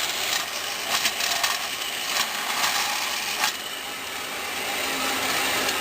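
Bandsaw cutting through the bottom of a sealed metal electrolytic capacitor canister: a harsh, hissing rasp with uneven scrapes, which eases and evens out about three and a half seconds in.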